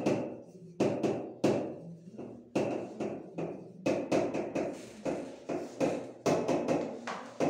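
Writing on a classroom board: an irregular run of sharp taps and knocks, about two a second, each dying away quickly.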